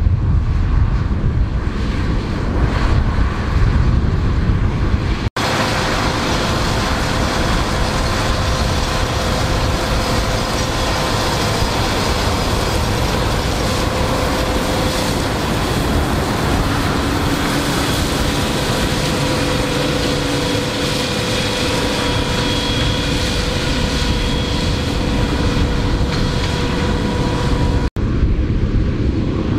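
Fendt Vario 820 TMS tractor running under load, driving a Dragone butterfly mulcher whose rotors shred tall dry cover-crop stalks. A steady, even noise, with whining tones from the drive through most of it; for the first five seconds or so it is farther off, a low rumble with wind on the microphone.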